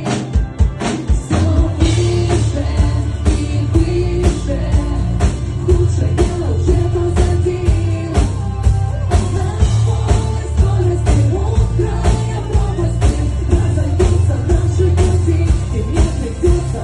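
Rock music: a full band playing, with a steady drum beat of about two hits a second over a sustained bass line.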